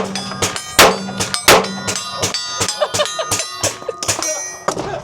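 Handgun shots at a range: three loud shots in the first second and a half, with many fainter shots and a metallic ringing between them.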